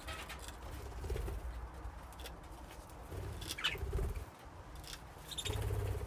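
Budgies in a colony cage giving a few short chirps, about three and a half and five and a half seconds in, over wing flutters and low thumps of birds moving about the cage.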